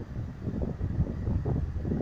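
Air buffeting the microphone: an irregular low rumble that surges and drops several times a second.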